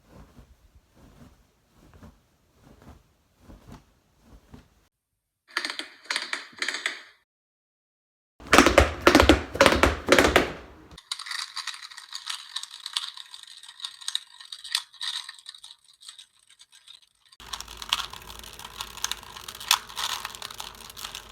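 A series of separate foley sound effects cut one after another: faint light taps, a short rattle about six seconds in, loud clattering clicks, a hissing scrape, then a dense busy rustling clatter near the end.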